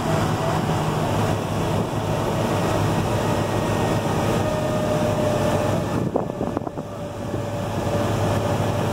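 A 50-plus-year-old tram running along a road: a steady engine drone with a faint whine. The level dips briefly about six seconds in, with a few light clicks.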